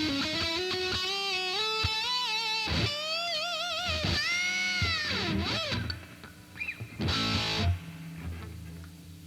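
Electric guitar played through a Fender Frontman 25R combo amp: sustained lead notes with string bends and wide vibrato, then a brief chord about seven seconds in. After the playing stops, a low steady hum is left.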